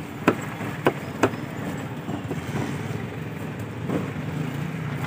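A heavy curved cleaver chopping fish on a wooden log block: three sharp knocks in the first second and a half, then a couple of fainter ones, over a steady low hum.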